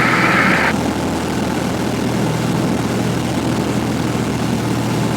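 Cockpit drone of a Cessna 172F's six-cylinder Continental O-300 engine and propeller in steady flight. A higher hiss drops away abruptly under a second in, leaving the steady engine drone.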